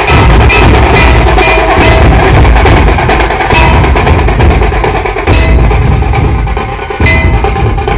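Dhol-tasha troupe drumming: large barrel-shaped dhol drums pounding a heavy beat under rapid, sharp tasha strokes with a bright ringing edge. The drumming eases briefly about seven seconds in and comes back with a hard stroke.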